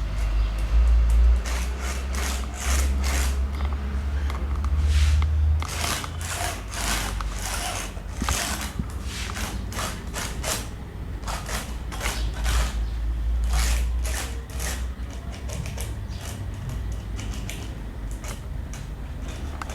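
Wood lathe running with a steady low hum while a turning tool cuts into the spinning wood in repeated short, irregular scraping bursts, which thin out after about two-thirds of the way through.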